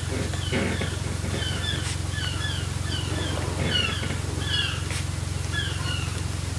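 Birds chirping: a string of short, high chirps, irregularly spaced, over a steady low hum.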